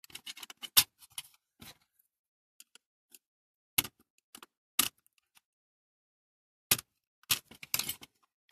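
Small metal clicks and knocks of tools on a die-cast toy fire engine as a stuck part is worked loose. There is a flurry of clicks in the first second, single clicks around four and five seconds in, and another flurry near the end.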